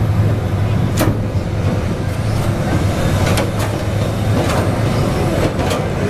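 Link-Belt 290 tracked log loader's diesel engine running steadily. Several sharp knocks break through it, one about a second in and a cluster in the second half.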